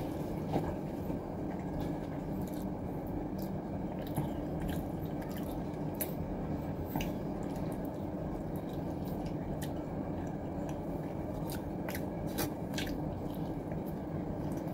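Close-up eating sounds: chewing and biting into a piece of fish held in wooden chopsticks, with scattered small clicks over a steady low background hum.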